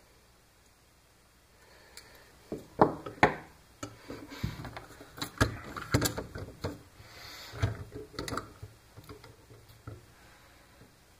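Pliers working a bent wire coat hanger: irregular sharp clicks, knocks and scrapes as the wire is gripped, bent and tapped against the cardboard and bench, starting about two seconds in, with the loudest pair of clicks around three seconds.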